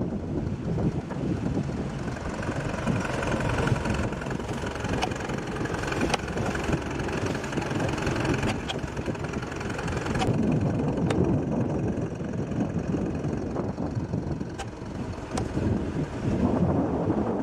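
Old tractor engine running steadily while its rear winch drum hauls in a fishing-net rope, with a few sharp ticks scattered through.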